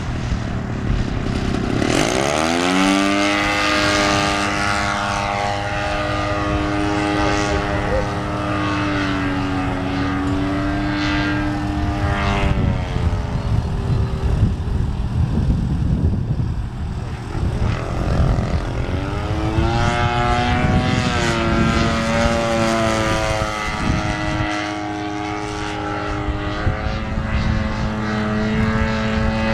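Radio-controlled Extra 300 aerobatic plane's 50cc two-stroke gas engine and propeller in flight. The engine note rises about two seconds in, holds steady, drops back around twelve seconds in, and climbs again around nineteen seconds in.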